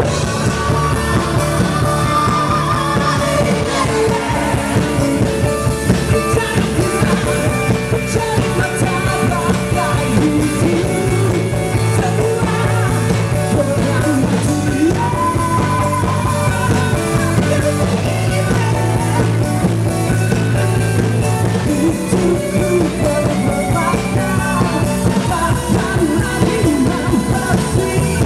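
Live rock band playing loud, continuous music: drums, bass and guitar, with singing.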